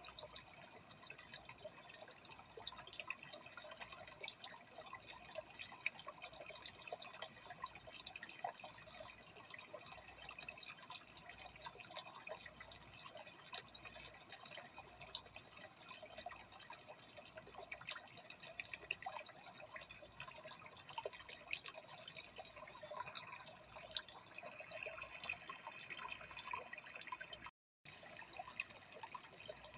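Aquarium water trickling and bubbling at the surface: a faint, steady patter of small drips and splashes. It cuts out for a moment near the end.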